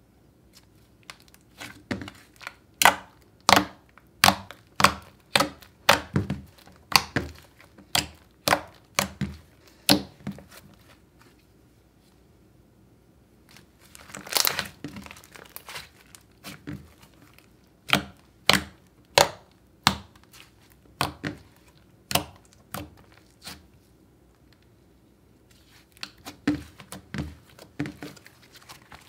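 Thick creamy clay slime being kneaded and squeezed by hand, giving runs of sharp pops and clicks at about one to two a second. About halfway through there is a longer crackly stretch, and the runs come with pauses of a few seconds between.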